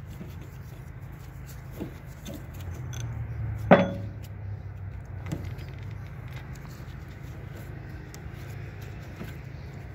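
A steady low hum, with one sharp metallic clink with a short ring a little over a third of the way in, like a steel hand tool set down on the workbench, and a few faint taps of handling.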